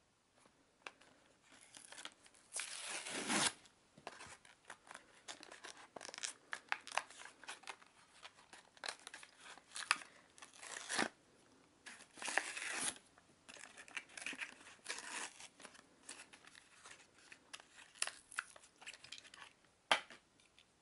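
Hot Wheels blister-card packaging being torn open by hand: irregular bursts of tearing and crinkling card and plastic. The longest tear comes about three seconds in, and a single sharp click comes near the end.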